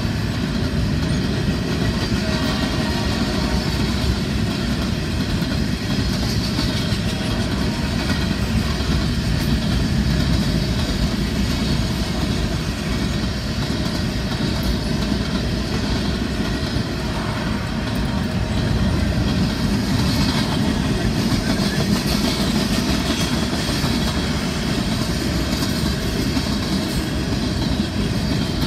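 A freight train's covered hoppers and boxcars rolling steadily past, their wheels clicking rapidly on the rails over a continuous rumble, heard from inside a car.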